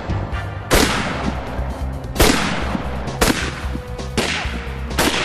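A scoped bolt-action rifle fired about five times, roughly a second apart, each shot sharp with a fading ringing tail.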